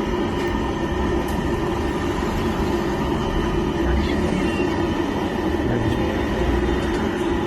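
Steady low rumble of motor traffic with a constant hum, no single event standing out.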